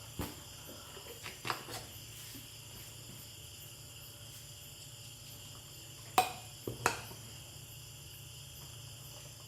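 Steady chirring of crickets at night, with a few sharp clicks, the loudest about six seconds in.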